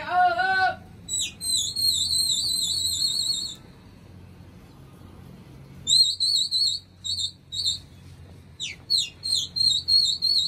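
Shrill warbling whistles: a long trilled whistle about a second in, a few short blasts around the middle, then quick downward-swooping whistles and more trills near the end. A high voice calls out briefly at the very start.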